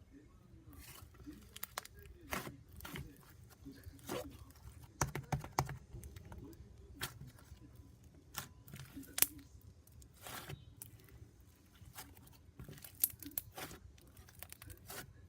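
Irregular crinkling, rustling and sharp clicks, like paper or packaging being handled and torn, with a few louder clicks scattered through.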